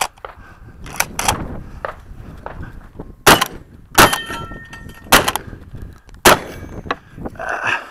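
Four shots from a Stoeger M3K 12-gauge semi-automatic shotgun, roughly a second apart. Steel plate targets ring after the hits.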